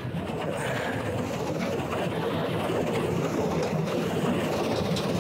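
Homemade ATV with steel-drum wheels driving through deep snow, its small air-cooled engine running steadily under load and growing a little louder.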